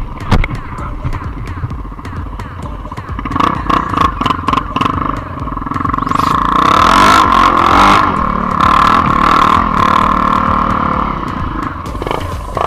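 ATV engine revving and pulling hard on a dirt-trail climb, swelling from about three seconds in and loudest around the middle. Wind and trail bumps knock and buffet the microphone, mostly early on.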